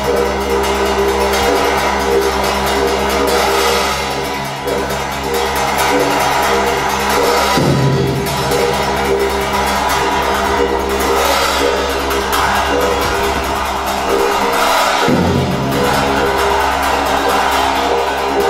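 Tibetan ritual dance music: a steady low drone with shimmering metallic sound above it, broken twice by a heavy strike, about seven seconds apart.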